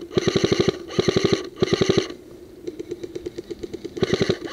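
Airsoft G3 electric rifle firing short full-auto bursts: a rapid rattle of about fifteen shots a second over the gearbox motor's whine. Three bursts come in the first two seconds, a fainter rattle follows, and another burst comes near the end.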